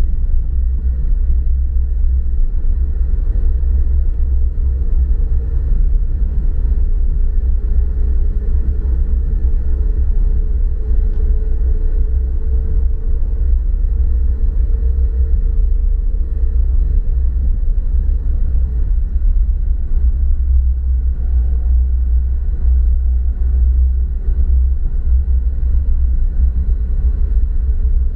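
Steady low rumble of a car driving, heard from inside the cabin: engine and tyre noise with a faint hum from the engine.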